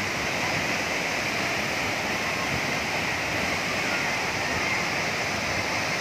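Tall waterfall pouring into its plunge pool: a steady, even rush of falling water.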